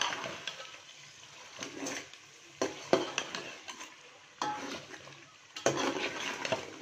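Metal spoon stirring chicken korma in a metal pot, scraping and clinking against the sides and bottom in irregular strokes, over a low sizzle of the simmering masala.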